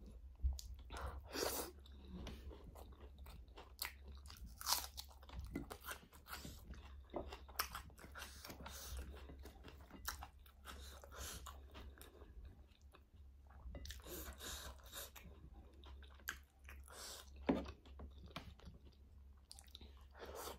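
Close-up mouth sounds of a person eating by hand: wet chewing, bites and crunches of food, with irregular sharp clicks.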